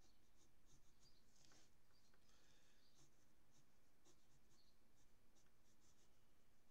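Faint scratching of a pencil sketching on paper: many short, quick strokes, with a couple of longer strokes about a second and a half to three seconds in.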